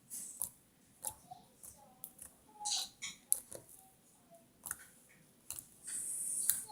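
Slime being squeezed and stretched by hand, making irregular small clicks and pops, with a longer crackling burst near the end.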